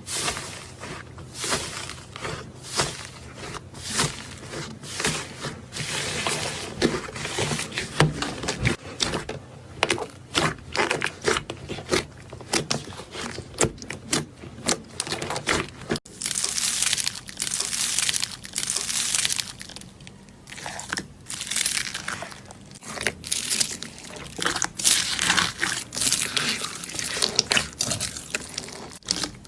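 Slime being pressed, squeezed and poked by hand, giving a dense run of small sticky clicks and pops, with a cut to another slime clip about halfway through.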